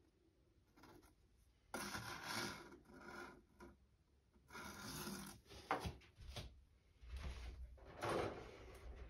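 Handling noises: irregular rubbing and scraping bursts with a few light knocks as the paint jar and the airbrush with its hose are picked up, shown and moved.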